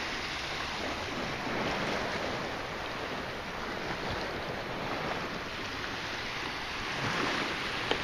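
Steady wash of small waves in shallow water, with wind noise on the microphone.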